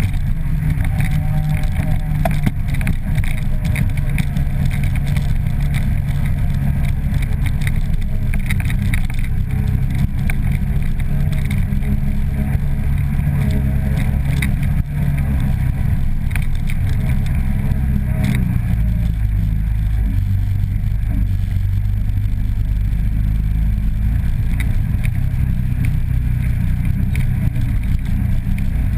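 ATV engine running while riding a rough dirt trail, a deep low rumble with the engine note rising and falling as the throttle changes.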